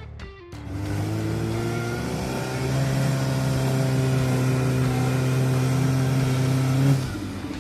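Jeep Renegade's engine revving under load, its pitch rising a little over the first few seconds and then held steady before it drops away about seven seconds in.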